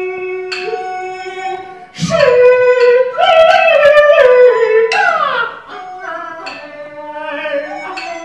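Kun opera music: a singer's melody sliding and bending between notes over a Chinese instrumental accompaniment. A held wind-like tone with plucked notes comes first. The voice comes in loud about two seconds in and drops back after about five seconds, leaving quieter instrumental notes.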